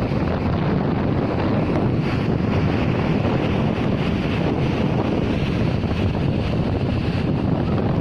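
Strong sea wind buffeting the microphone in a steady low rumble, with waves breaking on the shore underneath.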